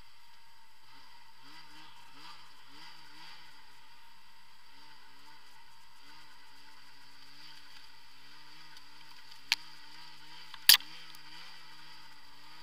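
A 2016 Arctic Cat ZR 6000 El Tigre snowmobile's two-stroke twin runs faint and muffled under a steady hiss, its pitch rising and falling with the throttle. Two sharp knocks come near the end, the second much the louder.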